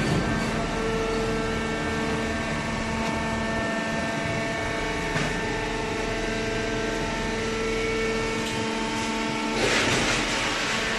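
Machinery running with a steady hum made of several constant tones over a low rumble, with a louder rushing noise coming in near the end.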